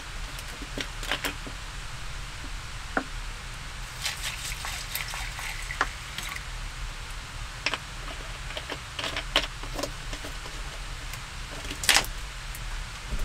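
Plastic water bottle being opened with a few clicks of the cap, then water poured from it into a bowl for a couple of seconds. A loud plastic crackle near the end as the bottle is handled.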